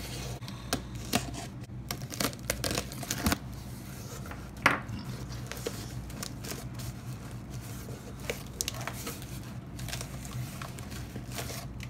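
Cardboard box being cut and torn open through plastic wrap and packing tape: scratching, ripping and crinkling, with a sharp snap about halfway through. After that, softer rustling of cardboard flaps and tissue paper, over a steady low hum.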